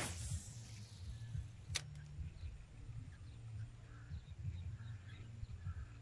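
Outdoor pond-side ambience: an uneven low rumble of wind on the microphone, with a brief hissing burst at the start, a sharp click about two seconds in, and faint short high chirps in the latter half.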